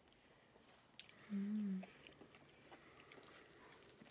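Faint chewing with small mouth clicks, and a short closed-mouth hum about a second and a half in.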